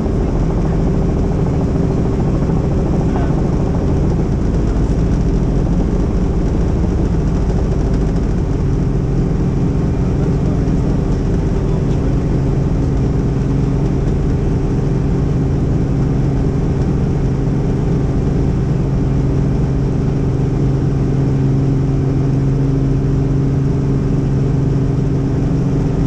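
Helicopter in flight: a loud, steady drone of rotor and engine, with a low hum that grows stronger about eight seconds in.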